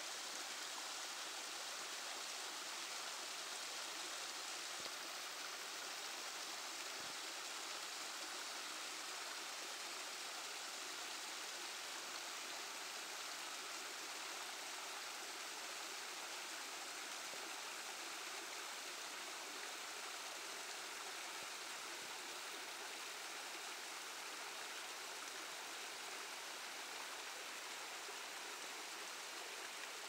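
A small creek waterfall cascading over stepped rock ledges, with a steady sound of splashing, flowing water.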